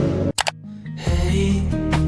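Background music changing tracks: an electronic track cuts off about a third of a second in, followed by a brief near-silent gap, and a new song with a slower, steady accompaniment comes in about a second in.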